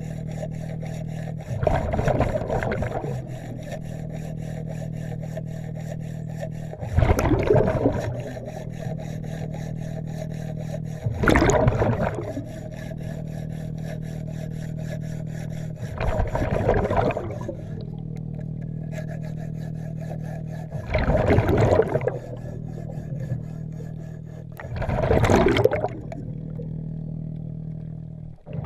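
Underwater, a diver's regulator exhales bubbles in six rushing bursts, about every four to five seconds, over a steady low hum.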